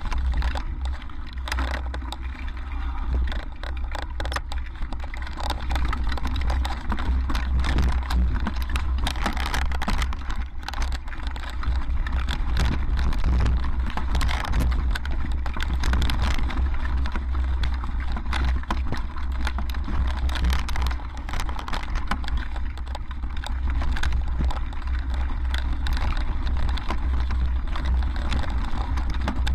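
Mountain bike riding down a rocky, gravelly trail: tyres rolling over stones and the bike rattling with many quick knocks over the bumps, under a steady low wind rumble on the camera microphone.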